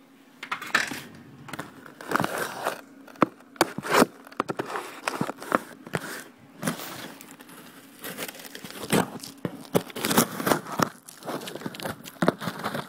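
A cardboard shipping box being slit open with a box cutter and unpacked: irregular tearing and crinkling of cardboard and packing, with scattered sharp clicks and knocks.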